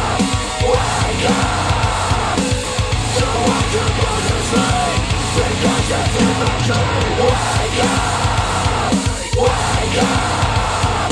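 A loud heavy rock track played back through a pair of Polk Audio TSi 200 bookshelf speakers driven by an IOTAVX SA3 integrated amplifier, with a dense, full band playing steadily.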